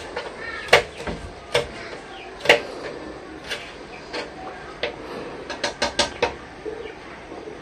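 Kitchen knife chopping green vegetables on a plastic cutting board: sharp knocks of the blade on the board at an uneven pace, with a quick run of several chops about six seconds in.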